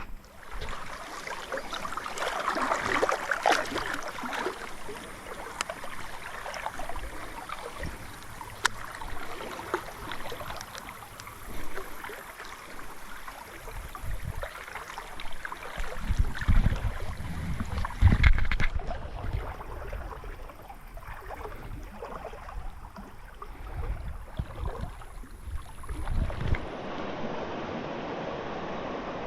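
River water running high after heavy rain, rushing and sloshing steadily. Several low rumbling bumps are heard in the second half, and the sound turns steadier and duller near the end.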